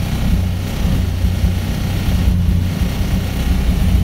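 Honda F23 inline-four engine, swapped into a Civic, idling steadily, with an even low drone and no revving.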